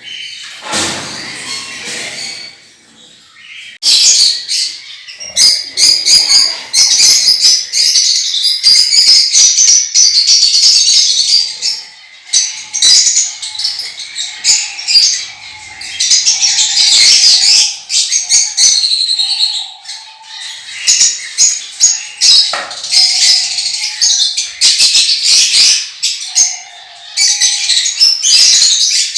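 Pet parrots chattering and chirping constantly in a dense, high-pitched racket that starts about four seconds in, with brief lulls now and then.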